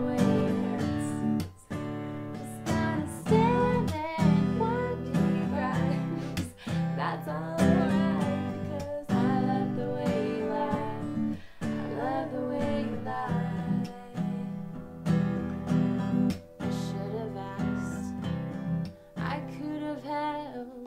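Acoustic guitar strummed in a steady rhythm, with women's voices singing over it.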